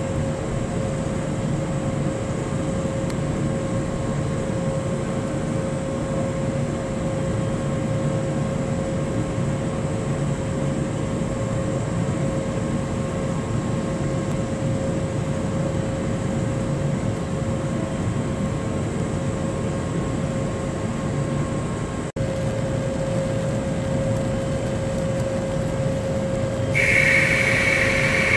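A stationary JR 381 series electric train's equipment hums steadily, with a fixed-pitch whine over the hum. The hum drops out briefly just after two-thirds of the way through. Near the end a louder, higher-pitched tone joins it.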